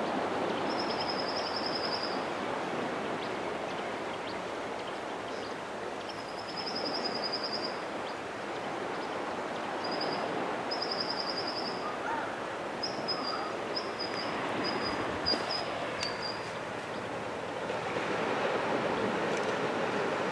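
Small surf washing steadily on a sandy beach, with a high rapid trilling call, a bird or insect, repeating every few seconds.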